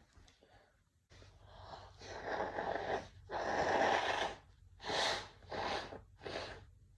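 A man's sneezing fit brought on by chhinkni snuff: breathy, gasping in-breaths build for about two seconds to a loud burst, followed by three shorter bursts.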